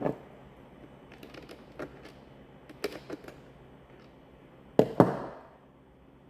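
Plastic instrument cluster bezel and trim pieces being handled and pressed into alignment: scattered light clicks and knocks, with two louder knocks in quick succession about five seconds in.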